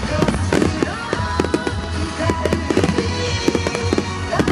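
A fireworks display with many shells bursting at once, giving a dense run of cracks and pops several times a second. Music plays underneath.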